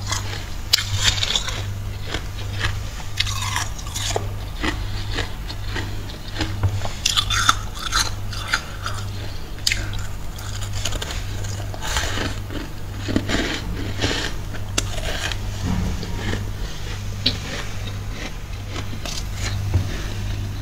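Soft freezer frost crunching in irregular bursts, crisp and crackly, as it is scraped or bitten, over a steady low hum.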